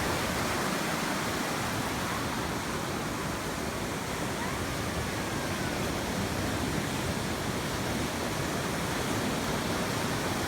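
Steady rush of surf washing on a beach.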